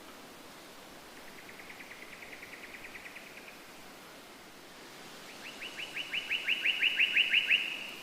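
A bird trilling twice: a fainter run of rapid, evenly spaced short notes, then after a pause a louder, slightly lower-pitched one of about seven notes a second that stops suddenly near the end, over a steady background hiss.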